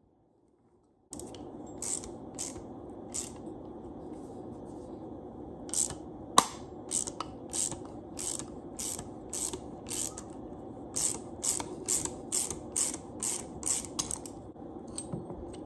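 A handheld bearing puller being worked on a golf-cart rear-end gear shaft: a train of short ratcheting clicks and creaks, about two a second and uneven, as the forcing screw is turned to draw the bearing off. One louder sharp crack about six seconds in, over a steady hum underneath.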